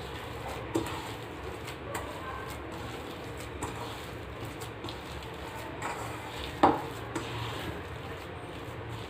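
Hands mashing and kneading spiced boiled-potato filling in a stainless-steel bowl, with a few short knocks of hand on steel. The loudest knock comes about six and a half seconds in.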